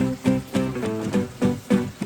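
Background music: a plucked guitar melody picking out quick, separate notes.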